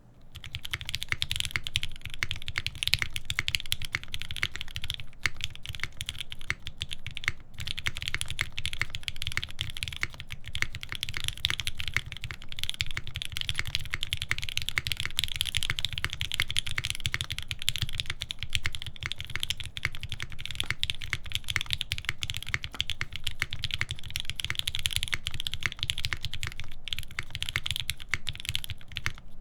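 Fast, continuous typing on an UNIKORN R2.1 mechanical keyboard with lubed Alpaca linear switches, GMK keycaps and a full FR-4 plate. The keystrokes start about half a second in and run on with only a few brief pauses.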